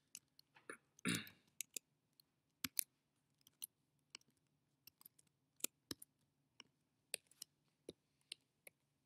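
Faint, irregularly spaced sharp clicks of a computer mouse and keyboard, with a slightly longer scraping click about a second in.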